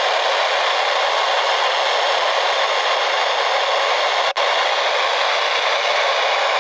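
Radio static: a steady hiss from a receiver picking up no clear signal, cutting out for an instant about four seconds in.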